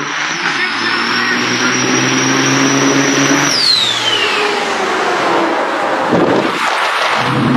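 Turbo-diesel semi-truck engines running hard at full throttle in a drag race, a steady deep engine note with a high whine over it. About three and a half seconds in the whine drops away in a falling glide and the sound turns to a rougher roar of the trucks running on down the track.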